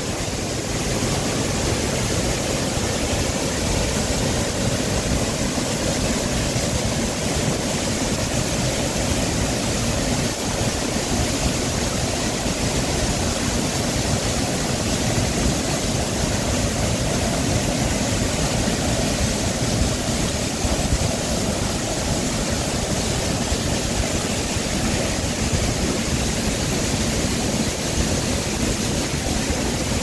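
Waterfall pouring over a broad rock ledge into a pool: a steady, even rushing of falling water.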